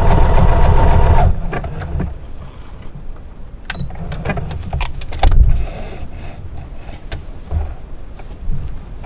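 Brother CS7205 computerized sewing machine running steadily while stitching a close zigzag (satin stitch), stopping suddenly a little over a second in. Scattered light clicks and a dull thump follow as the work is handled.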